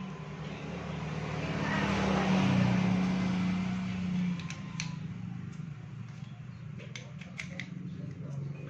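A motor vehicle engine hum that swells to a peak about two and a half seconds in and fades by about four seconds, like a vehicle passing, then settles to a steady low hum. A few light clicks, likely from tools, come about five seconds in and again near seven seconds.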